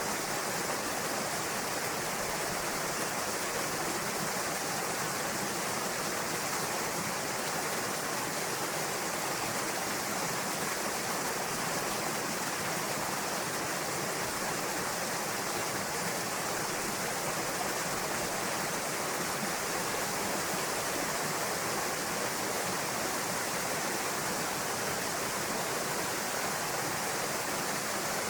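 Waterfall pouring steadily into a pool, a constant even rush of water.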